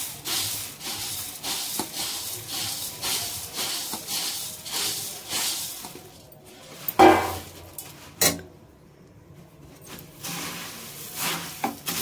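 Puffed rice poured from a steel plate into a steel kadhai, the dry grains rustling and pattering in repeated pulses. About seven seconds in there is one loud metal knock against the pan, with a sharper click just after.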